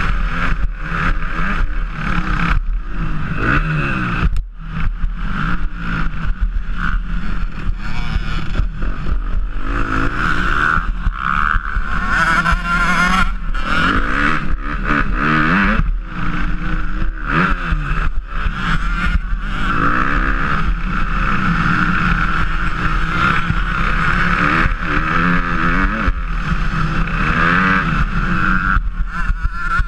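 Motocross bike engine under racing throttle, heard on board: it revs up and drops off again and again as the rider shifts and rolls off, with short dips every second or two.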